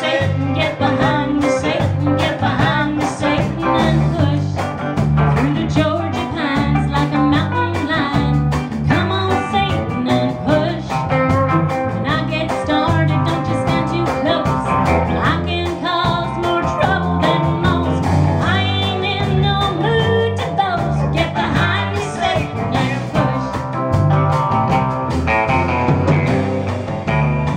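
Small live band playing a song: a woman sings lead over electric guitar, acoustic guitar, bass guitar and drum kit.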